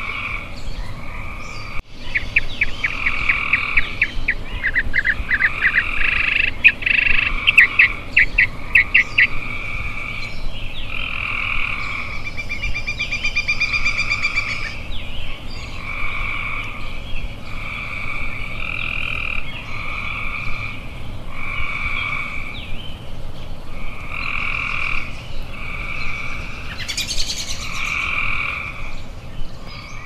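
A chorus of frogs calling, each call about a second long and repeating every couple of seconds. Rapid clicking calls come between about 2 and 9 seconds in, and a fast higher trill around 13 seconds.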